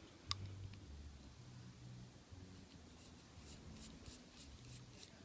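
Faint handling of small metal padlocks on a work surface: one sharp click about a third of a second in, dull bumps, then a run of light ticks and scratching in the second half.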